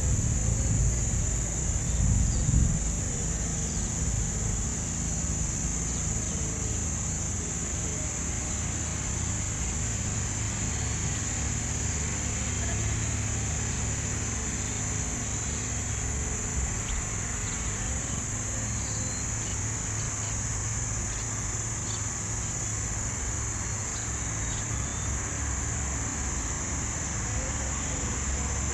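Insect chorus making a steady high-pitched drone without a break, over a low steady engine rumble.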